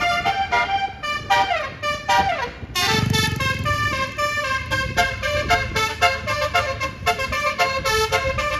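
Bus's Basuri multi-tone telolet horn playing a fast tune of short honked notes, with runs that slide down in pitch, over the bus engine's rumble, which grows louder about three seconds in.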